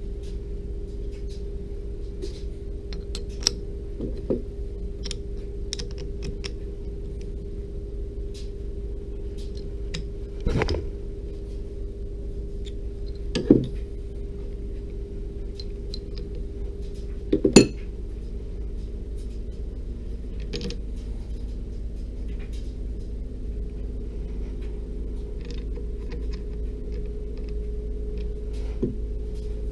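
Metal clicks and clinks from a WEN 4-inch four-jaw lathe chuck as it is fitted and its jaws are set with a chuck key, with three louder knocks in the middle, over a steady low hum.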